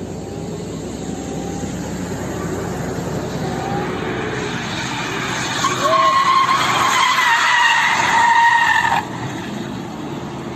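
Car tyres squealing in a loud, wavering high tone for about three seconds as a sedan slides sideways on a wet road, over a steady rushing noise; the squeal cuts off suddenly.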